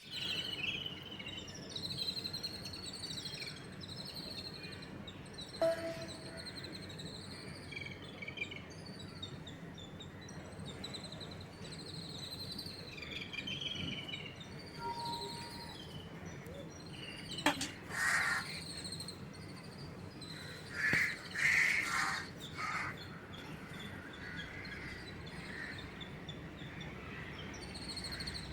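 Birds chirping over a steady low background hum. A few louder, harsher calls stand out past the middle.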